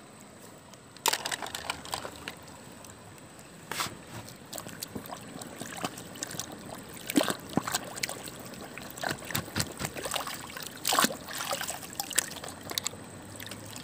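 Water trickling and sloshing as a plastic toy truck is handled in it, broken by irregular sharp splashes or knocks every second or two.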